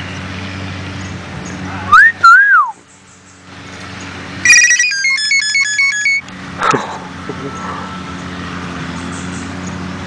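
Common hill myna mimicking a cell phone ringtone: a loud whistle rising and falling about two seconds in, then a quick run of electronic-sounding beeps at stepping pitches, ending in a short harsh squawk.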